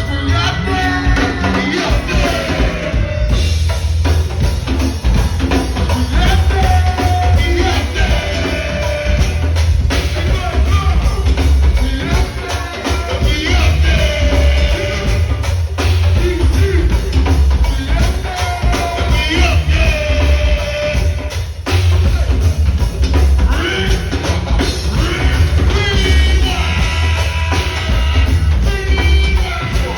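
Live go-go band playing: singing over a strong bass line and drum kit with a steady beat.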